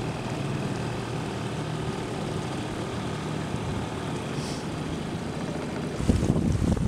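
A steady engine drone with an even low hum. About six seconds in, it gives way to wind buffeting the microphone in gusts.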